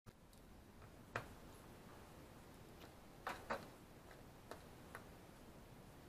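Faint knocks and taps of a laptop's plastic case being set down and shifted on a work mat by hand: one sharp knock about a second in, two close together a little past the middle, then a few lighter taps.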